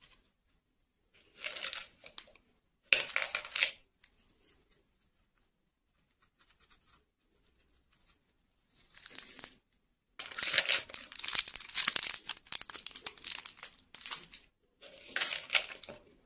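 Plastic packaging crinkling and tearing close to the microphone as toys are unwrapped by hand. It comes in several short bursts, with a longer stretch of about four seconds past the middle.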